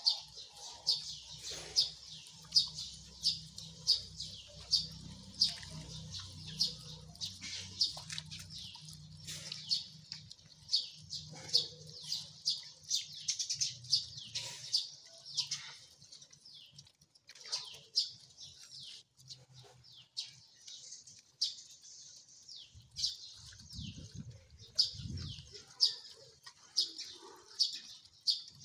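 Several dogs eating from one plate: a rapid, irregular run of wet chewing and smacking clicks, several a second.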